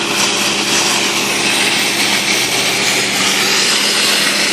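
A small engine-driven machine running steadily, a constant hum under a loud, dense hiss.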